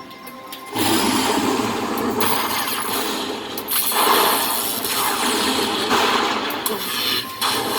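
Slot machine and casino floor din, a dense steady noisy wash that comes in under a second in after a brief lull.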